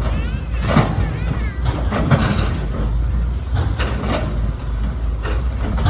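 Machinery running with a steady low rumble, broken by short noisy surges about once a second.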